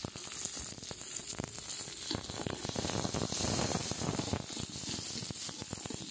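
Chopped shallots sizzling and crackling as they sauté in hot oil with mustard seeds, curry leaves and dried red chillies in an aluminium pot, stirred with a metal slotted spoon.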